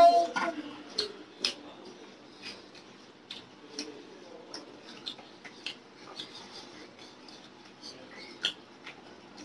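Hand-eating sounds: fingers mixing rice and curry on steel plates, with chewing and small mouth sounds, a scatter of faint clicks and squishes, one a little louder near the end.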